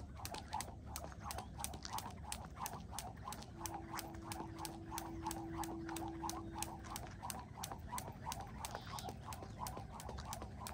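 Skipping ropes slapping the ground in a quick, even rhythm of about three to four slaps a second.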